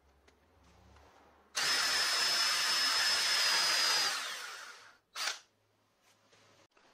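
Electric drill boring into a wooden block with a Forstner bit, running loud and steady with a high whine for about two and a half seconds, then spinning down. A short brushing sound follows as the wood shavings are swept off.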